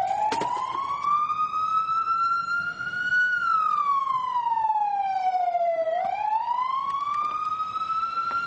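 Ambulance siren wailing: one slow, steady wail that rises for about three seconds, falls for about three, then rises again. A few knocks sound about half a second in.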